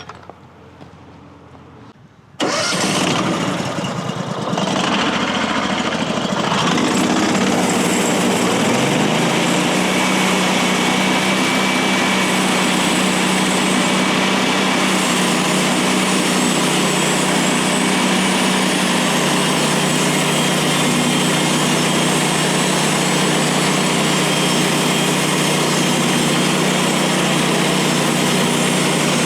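The gas engine of a Woodland Mills HM136MAX bandsaw sawmill starts suddenly about two seconds in, rises in speed over the next several seconds, then runs steadily at high speed to power the blade for the first cut.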